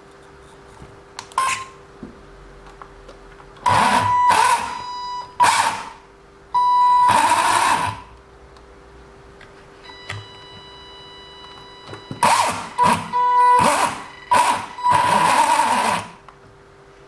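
WLToys 144001 RC car's drivetrain, with its new metal centre driveshaft, run in a series of short throttle bursts: a high-pitched whine with a grinding edge, in three bursts in the first half and a cluster of quick blips near the end. The grinding is metal gear on metal driveshaft, which the owner suspects is not right and later puts down to the parts needing to bed in.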